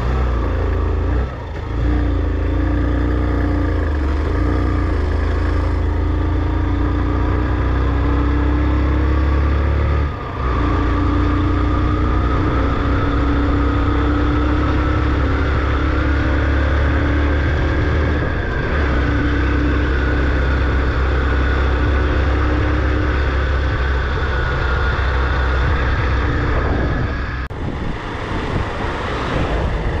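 A motor vehicle driving: engine and road noise with a strong low rumble and a steady hum. The hum rises slowly in pitch in the middle, and the sound dips briefly twice, about a second in and about ten seconds in.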